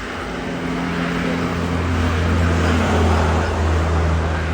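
A motor vehicle's engine running close by, its low hum and road noise growing louder to a peak about three seconds in, then easing off.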